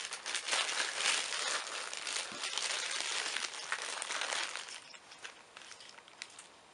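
Dense crinkling, rustling noise that dies down about five seconds in, leaving a few faint clicks.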